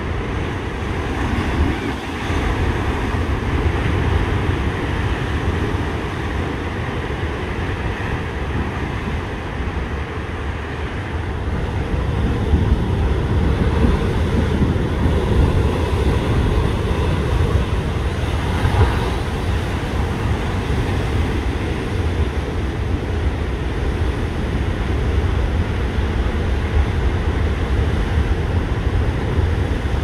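Strong wind buffeting the microphone over the surf of a rough sea stirred up ahead of a typhoon; a low, steady rumble that grows louder about twelve seconds in.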